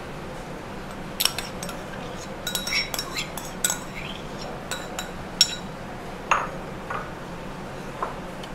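Metal spoon clinking and scraping against crockery as curd is scraped out of a ceramic bowl into a bowl of semolina: a string of light, irregular clinks with a brief ring after each.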